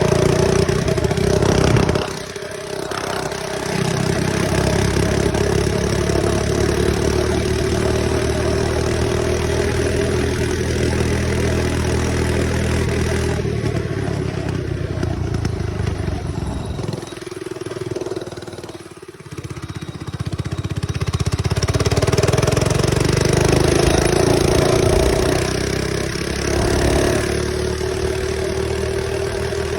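Mini bike's small engine running under throttle while ridden. The pitch rises and falls with the throttle, and the engine eases off briefly twice.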